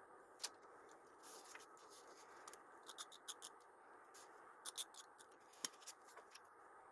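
Scissors snipping paper and stickers: scattered crisp snips and clicks, some in quick clusters, with a short scrape about a second and a half in, over a faint steady hiss.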